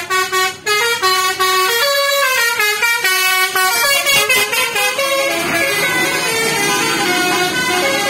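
Bus 'telolet basuri' melodic horn playing a tune of quick stepped notes. From about five seconds in, the rushing noise of the bus passing close by rises under the last notes.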